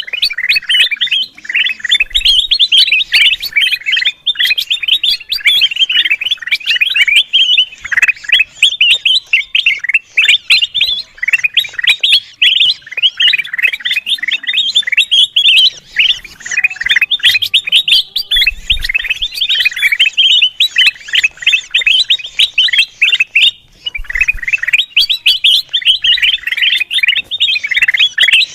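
Kutilang emas (golden bulbul) chattering busily, a dense, unbroken stream of quick chirps and short trills with one brief lull, recorded for use as a bird-lure call.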